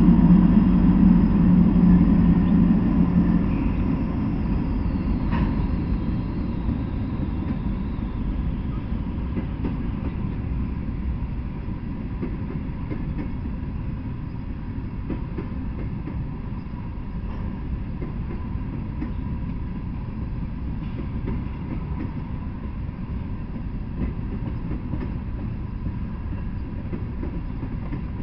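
Norfolk Southern freight train passing at speed: the diesel locomotive's engine is loud for the first few seconds and fades as it goes by, leaving a steady rumble of covered hopper cars rolling over the rails with occasional faint wheel clicks.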